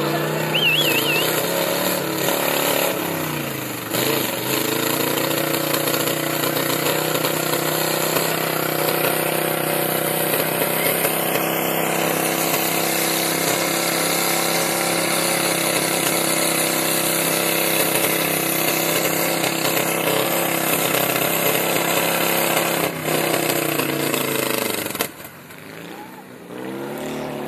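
Mud-bogging buggy's engine revved hard and held at high revs while its big tyres spin in the mud, throwing up spray. The revs dip and recover about four seconds in, then fall away near the end and climb again.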